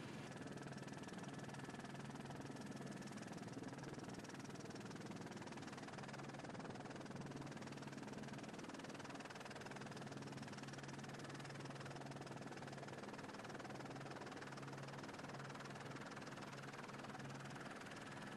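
Helicopter engine and rotor noise heard inside the cabin, a steady drone with no change in pitch.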